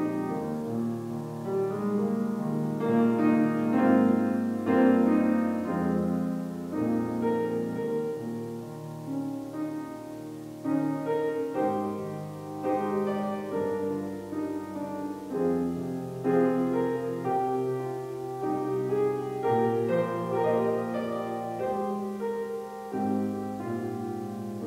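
Solo grand piano playing a slow piece of held chords under a melody.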